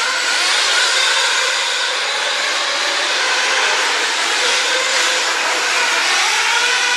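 Several radio-controlled off-road race cars running together, their motors whining at high pitch and rising and falling as they accelerate and brake around the track.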